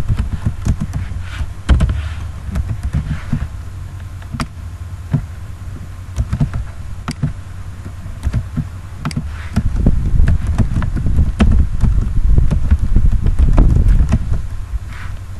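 Computer keyboard typing: scattered, irregular key clicks over a loud low rumble that swells in the second half.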